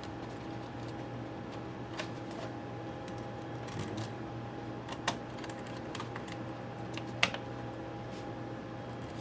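Small screws and fingers clicking and tapping against a plastic parts tray and the laptop's metal case as screws are picked out and set into an iBook G4's bottom case: a few scattered clicks, the sharpest about seven seconds in, over a steady low hum.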